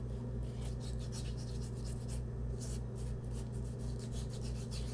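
Fingertips rubbing pre-shave cream into coarse beard stubble, a scratchy rasping of many quick strokes, over a steady low hum.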